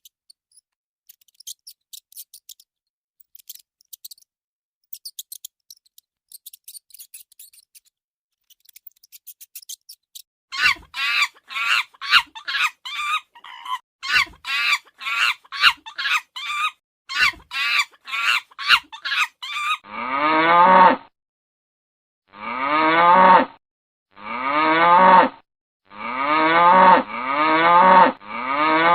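Faint high chirping clicks, then a quick run of short high-pitched calls about ten seconds in. From about twenty seconds in, a cow moos over and over, each moo about a second long with short gaps between.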